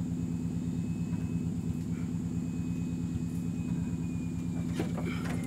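Off-road 4x4 engine running at a steady idle, an even low drone with no revving. A few light knocks come near the end.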